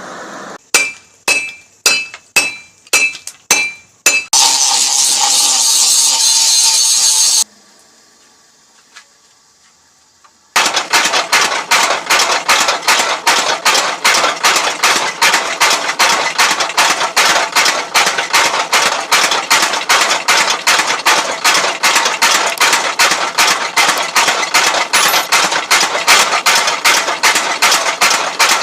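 Forging a sickle blade: about eight ringing hammer blows on metal, then a few seconds of steady rushing noise. From about ten seconds in, a homemade power hammer pounds the hot steel with rapid, steady, evenly spaced blows.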